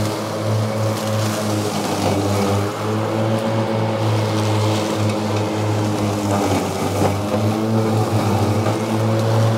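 EGO 52-inch battery-powered zero-turn riding mower running with its electric blade motors humming and the deck cutting through tall, thick dead reeds. The hum sags in pitch a few times around the middle as the motors slow under the heavy load, then picks back up.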